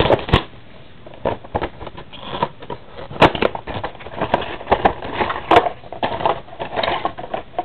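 Trading-card packaging being handled and torn open: crinkling wrapper and cardboard, a string of irregular sharp crackles and rustles.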